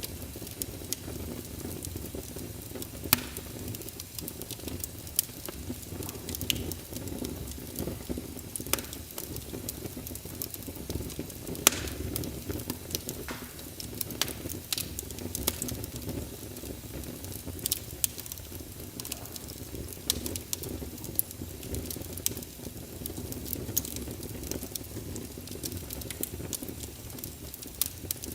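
Wood fire burning in a fireplace: irregular sharp crackles and pops, a few of them louder, over a steady low rumble.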